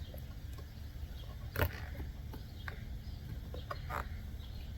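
A few short clicks and knocks of plastic parts being handled inside a car door, the loudest about one and a half seconds in, over a low steady hum.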